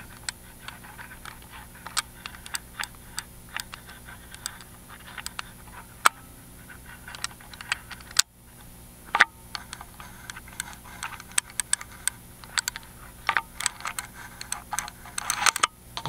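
Miwa EC magnetic cylinder lock being picked: irregular small clicks as the pick pushes the spooled magnetic pins in and out under tension while the picker tries to set them.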